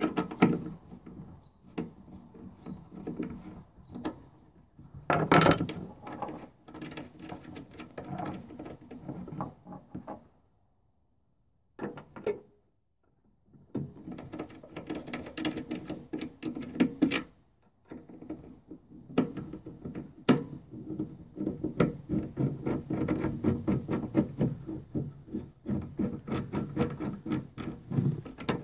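Handling noise: rubbing, rustling and small clicks of hands working a tailgate-assist gas strut and its cable, with a pause a little after ten seconds in.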